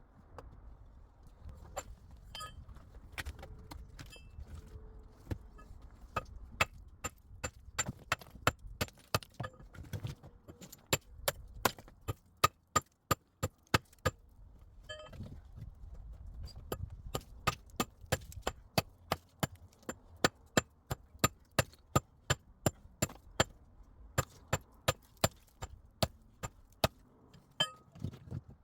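Rapid, repeated sharp strikes of a hand tool, about two to three blows a second, in two runs with a short pause about halfway through.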